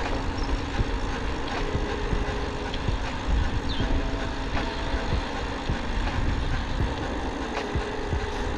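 Wind rushing over the microphone of a moving bicycle, with the bike rattling over the tarmac in many small low knocks.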